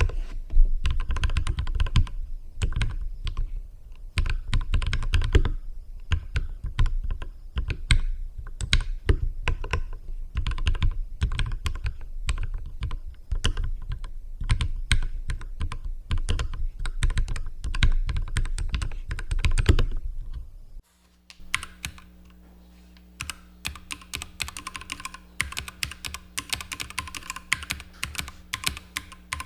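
Continuous fast typing on a Keychron K6 mechanical keyboard with lubricated Keychron Mechanical Red linear switches, a dense run of key strokes. About 21 seconds in the sound changes: the typing gets quieter and a faint steady hum sits underneath.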